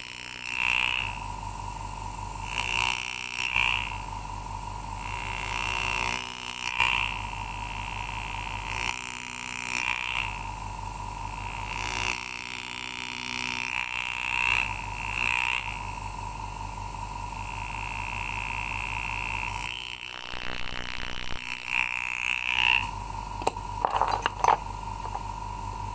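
Graver cutting bright-cut engraving into a silver-overlaid copper rivet held in an engraver's block: short bursts of cutting noise recur every few seconds over a steady hum, with a run of rapid fine ticks later on and a few sharp clicks near the end.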